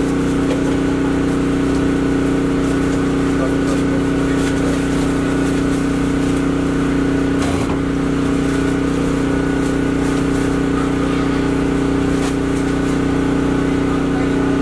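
An engine running at a constant speed: a steady hum made of several even tones. There is a brief knock about seven and a half seconds in.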